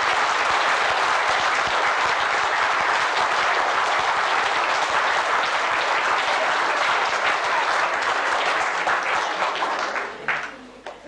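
Audience applauding, a steady clatter of many hands clapping that dies away near the end, with a few last single claps.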